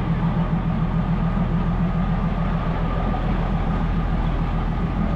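Diesel engine of the market train running steadily at low revs: a low rumble with a fast, even throb.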